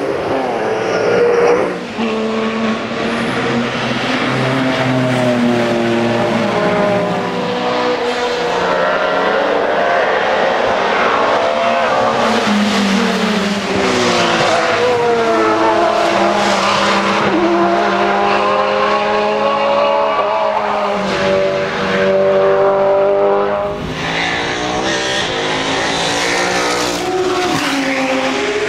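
Several GT race cars passing at racing speed one after another, their engine notes rising and falling through gear changes, with more than one engine often heard at once.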